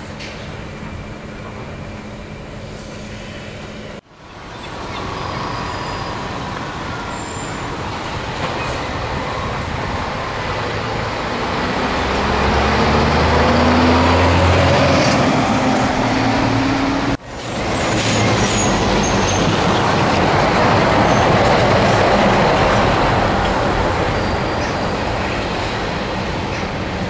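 Scania truck running on the road: a steady engine and tyre noise, with the engine pitch climbing as it accelerates through the middle. The sound breaks off abruptly twice, about four seconds in and again about two-thirds of the way through.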